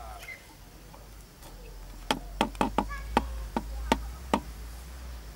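A plantation worker's harvesting tool chopping in an oil palm plantation: about eight sharp strikes in quick, uneven succession, starting about two seconds in.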